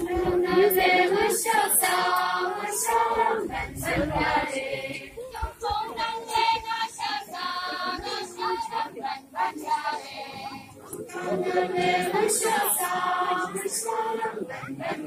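Group of women's and children's voices singing a chant-like song together, the accompaniment of the Tangsa Naga Sapolo circle dance; the sung phrase comes back stronger near the end after a softer middle stretch.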